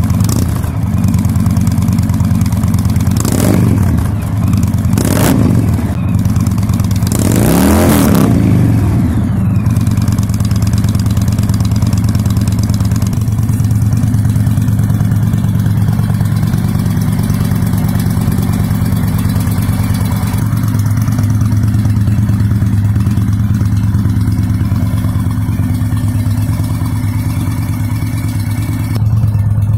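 Indian Chieftain's V-twin engine breathing through Cobra 4-inch slip-on mufflers. It idles and is blipped three times in the first ten seconds, the longest rev coming about eight seconds in, then settles to a steady idle.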